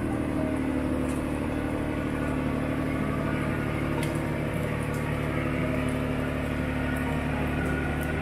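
Forestry machine engine running steadily at a constant speed.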